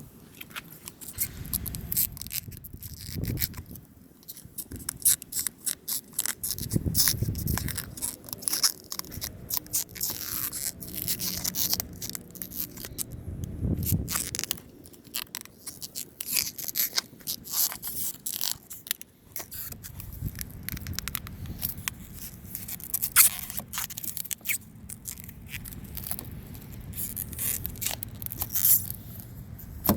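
Hand work at a pickup truck's exterior door handle: irregular scraping, rubbing and crackling with scattered sharp clicks and a few dull thumps.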